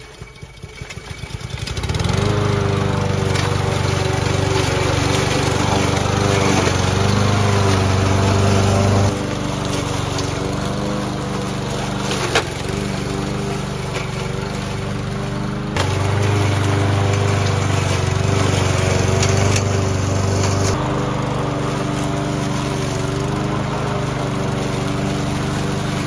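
The 160cc Honda engine on a Troy-Bilt push mower is pull-started after sitting for over 24 hours and catches within about two seconds, then runs steadily while cutting grass. Its level drops and rises a few times as the load changes, with a single sharp knock about twelve seconds in.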